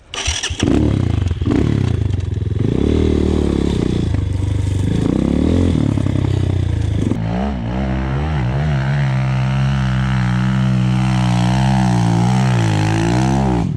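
RXF 150 pit bike's single-cylinder four-stroke engine revving hard, its pitch rising and falling repeatedly under throttle for the first several seconds, then holding a steadier, high running note with a slight wobble until it cuts off suddenly at the end.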